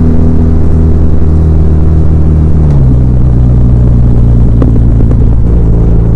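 BMW R1200R's air/oil-cooled boxer twin running, its note easing down from higher revs and dropping a step a little under three seconds in, then holding low and steady. A few faint clicks come near the end.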